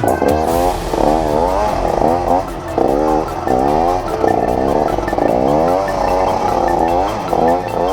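Off-road trail motorcycle engine revving in repeated short bursts, its pitch climbing and dropping back about once or twice a second.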